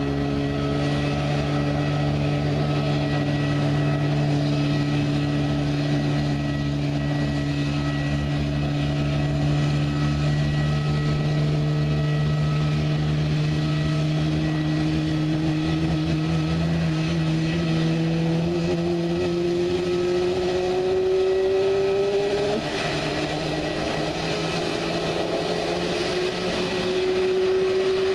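Airbus A320neo turbofan engine spooling up during start: a steady mechanical whine and hum whose tones climb slowly in pitch through the second half, with a shift near the end and another rising tone after it.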